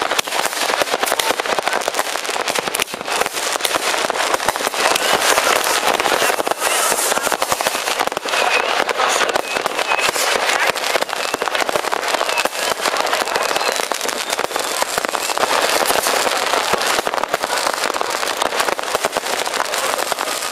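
Many fireworks and firecrackers going off at once: a continuous, dense crackle of overlapping bangs with no break.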